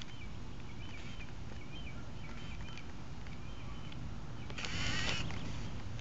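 Faint, quiet outdoor background with a few faint high chirps, then, about four and a half seconds in, a half-second burst of a large dog's rapid breathing as it noses along the base of a wall, hunting lizards.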